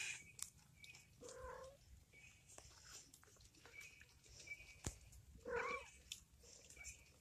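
Three-week-old kitten mewing twice, each a short call of about half a second, the calls about four seconds apart, with light clicks of handling in between.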